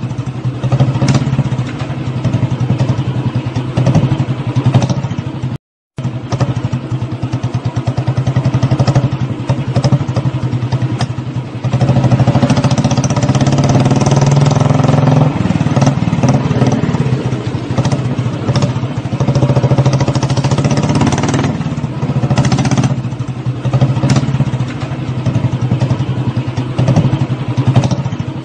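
Motorcycle engine running with a rapid, even pulsing; the revs rise and fall about twelve to sixteen seconds in. The sound cuts out completely for a moment about six seconds in.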